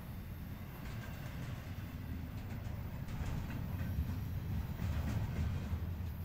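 Intermodal freight train's cars rolling past on the rails: a steady low rumble with faint clicking from the wheels. It grows a little louder about halfway through.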